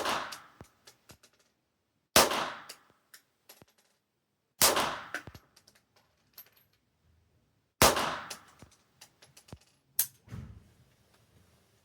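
Old Vostok .22 LR target pistol fired five times, one shot every two to three seconds, each crack followed by a short echoing tail.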